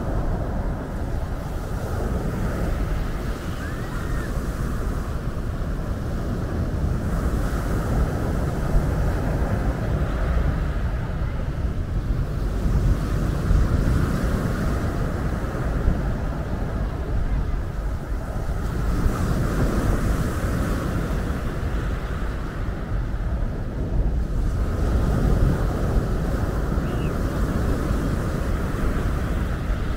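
Sea waves breaking and washing up a pebble beach, the surf swelling and falling back every few seconds, with wind buffeting the microphone as a low rumble underneath.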